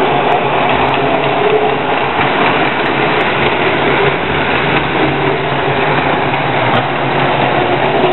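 Lionel O-gauge toy trains running on three-rail tinplate track: a steady whir of the electric motors with the rattle of wheels over the rails.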